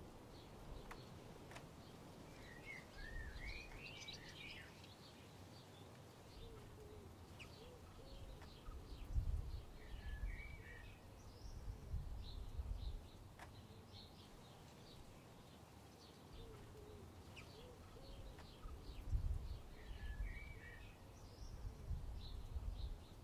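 Faint background birdsong: small birds chirping, with a short warbled phrase that comes back about every ten seconds, and a few brief low rumbles.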